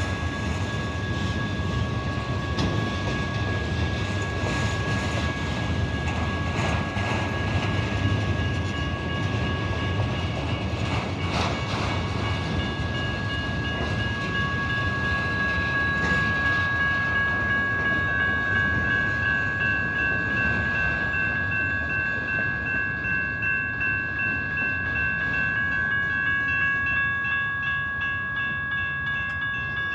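Freight train of autorack cars rolling past with a steady low rumble, while a railroad crossing's warning bell rings. The rumble thins out over the last several seconds as the end of the train clears the crossing, leaving the bell ringing.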